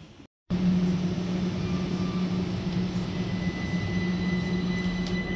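London Overground Class 378 electric train, a steady electrical hum with thin high whining tones, beginning abruptly about half a second in.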